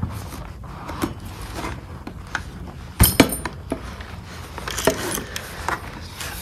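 Keys and a metal padlock on a lanyard clinking and jingling as they are handled, in scattered clicks and knocks, the loudest about three seconds in.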